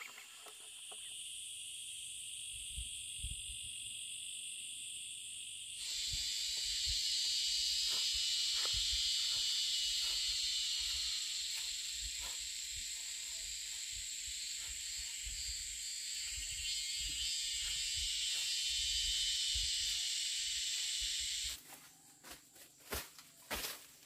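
Steady high-pitched droning of an insect chorus, with scattered soft knocks and rustles underneath. The drone changes pitch and loudness abruptly about one and six seconds in, and cuts off sharply near the end.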